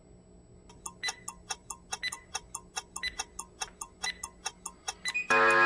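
Interval timer's countdown ticking, rapid and even, over the last seconds of a work interval, then a loud buzzer about five seconds in as the countdown runs out, marking the end of the set.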